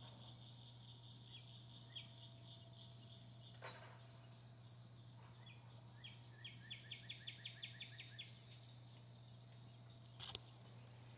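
Faint outdoor ambience of insects chirping in rapid pulses over a steady low hum. About two-thirds of the way through a bird sings a quick trill of about a dozen notes. There are two short clicks, the louder one near the end.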